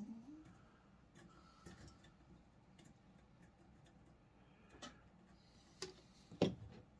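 Faint, scattered ticks and clicks of small metal parts and a tool being handled as a tonearm bearing set bolt is adjusted, with a few sharper clicks near the end.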